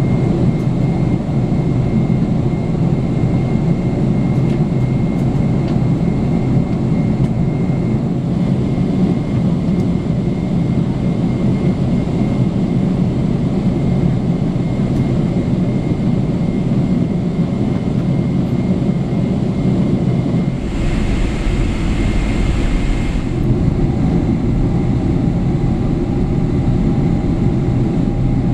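Steady in-flight cabin noise of a Boeing 777-300ER heard from a window seat beside the engine: the rush of airflow and the hum of its GE90-115B turbofans. About three-quarters of the way in the sound changes, with a couple of seconds of extra hiss and a deeper rumble, after which a steady hum joins in.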